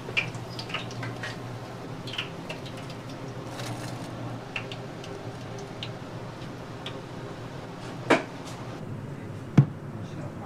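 Kitchen clatter: scattered light clinks and knocks of dishes and utensils over a steady low hum, with a heavier knock about eight seconds in and a sharp thump near the end.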